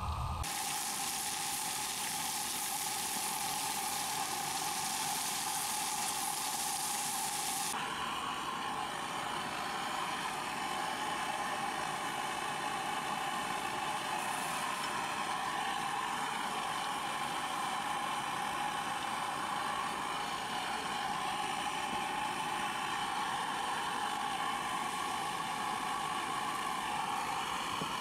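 Green vegetables frying in a stainless steel pan on a portable camp stove: a steady sizzle. About eight seconds in it becomes duller, losing its high hiss, and stays so.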